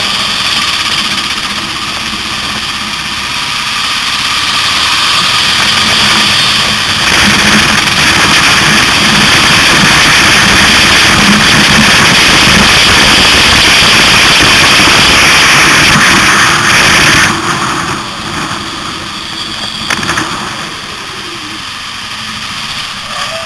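Kawasaki KLR650 single-cylinder motorcycle engine running through city traffic, mixed with heavy wind and road noise on the camera. The noise swells about a quarter of the way in, stays loud, then drops away suddenly about three quarters through to a quieter running sound.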